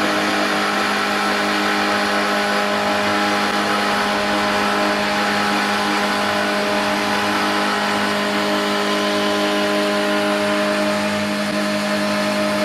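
Mini woodworking CNC lathe running steadily as it turns an oak post: a steady hum from its 3.0 kW spindle motor, with several held tones over an even hiss.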